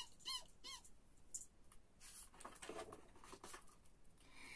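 Three short, high mouse-like squeaks in quick succession in the first second, then the soft rustle of a picture-book page being turned.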